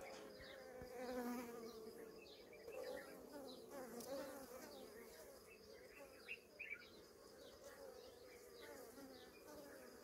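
Honey bees buzzing faintly in flight at the hive entrance as the first foragers head out, the pitch of the buzz wavering as bees pass by.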